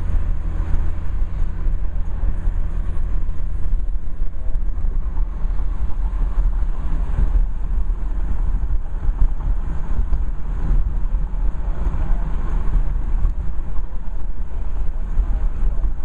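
Car cabin noise while driving: a steady low rumble of engine and tyres on the road, heard from inside the car.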